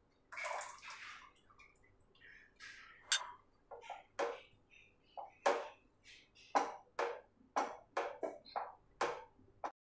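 Ground-wheat batter poured into a non-stick kadhai, then a wooden spatula stirring it and scraping the pan bottom in short strokes, coming about twice a second near the end.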